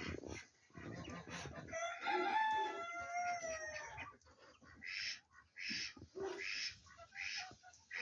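Fowl calling: one long crowing call that falls in pitch, starting about two seconds in and lasting nearly two seconds, then a run of short harsh calls, about one every 0.7 s.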